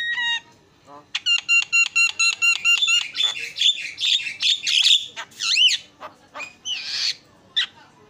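Javan myna singing: a fast run of evenly repeated ringing notes, then varied chattering notes and swooping whistles, with a harsh rasping note near the end.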